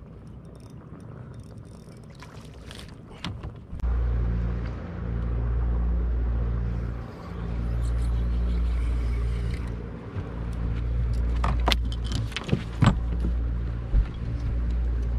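A low motor hum comes in suddenly about four seconds in and keeps running, swelling and dipping every couple of seconds, with a few sharp knocks and clicks on the boat.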